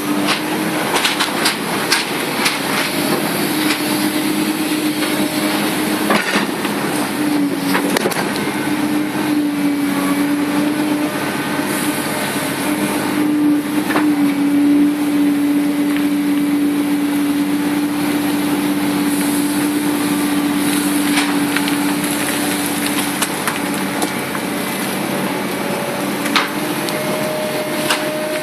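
Komatsu PC300-8 excavator's six-cylinder diesel engine running steadily under work, its hum wavering slightly in pitch. Scattered sharp knocks and clanks come over it.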